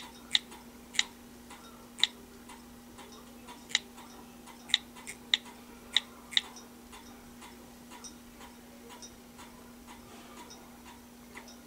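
Key presses on an HTC Droid Eris's touchscreen keyboard while a login is typed: about nine sharp, irregular clicks in the first six seconds. Under them runs a faint, regular ticking about twice a second and a steady low hum.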